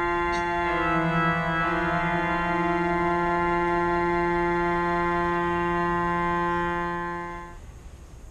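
Pipe organ holding a long sustained chord, with more notes added about a second in; the chord is released near the end and dies away to quiet.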